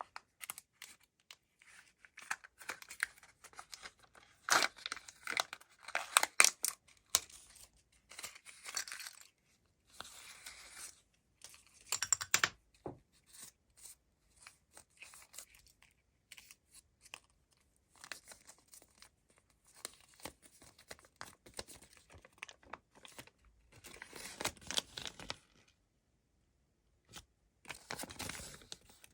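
Foil wrappers of chocolate eggs crinkling and tearing as they are unwrapped, in irregular bursts with short pauses and sharp clicks between them.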